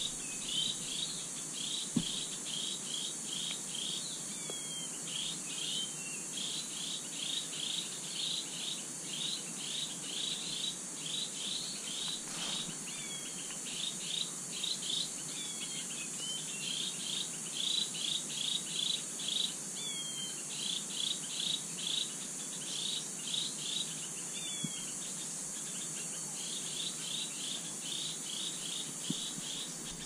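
Mixed wild bird calls over a steady high insect drone: bouts of quick, evenly repeated high notes, about four a second, with short sliding chirps in between.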